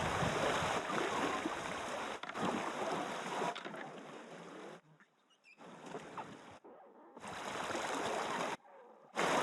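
Rushing river water at a moderate level, breaking off abruptly a few times.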